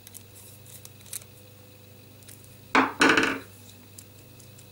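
A metal-shafted screwdriver set down on a tabletop: two quick clattering knocks a little past halfway, the second with a brief metallic ring.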